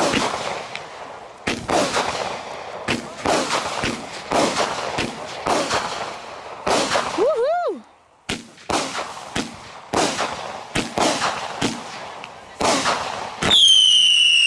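A 25-shot consumer firework cake firing, a string of sharp reports about two a second with a short lull about halfway through. Near the end a loud, high whistle starts and falls slowly in pitch.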